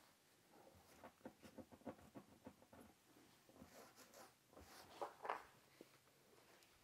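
Near silence, with a faint run of light ticks and taps, about four or five a second, from about half a second in, and a few soft knocks later on.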